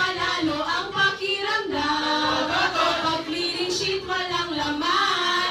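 Music with singing voices, the melody holding a long note about halfway through.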